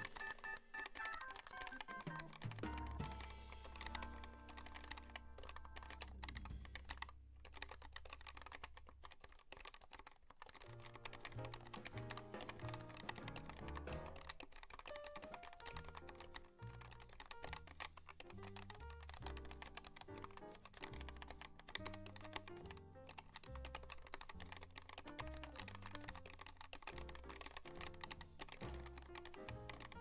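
Continuous typing on a Keychron K1 V4 low-profile mechanical keyboard, a dense patter of key clicks, over background music.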